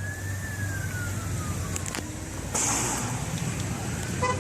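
An emergency vehicle siren wailing in a slow rise and fall over a steady low rumble. A short hissing burst comes about two and a half seconds in.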